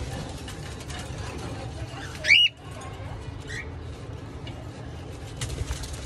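Cockatiel chick giving one short, loud, rising call about two seconds in, then a fainter rising call about a second later, over a steady low background rumble.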